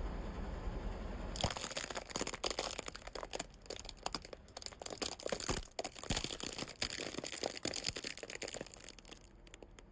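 Car tyre rolling over and crushing crunchy objects: a low rumble, then about a second and a half in a dense run of cracking and crackling that thins out near the end.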